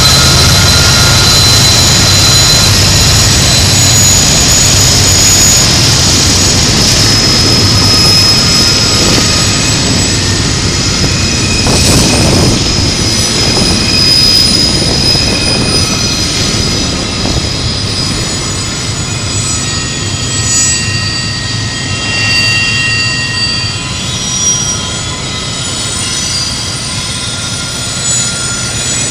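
Norfolk Southern diesel freight locomotives working upgrade, their deep engine drone slowly fading as double-stack container well cars roll past. High-pitched wheel flange squeal sounds throughout as the wheels grind around the tight curve.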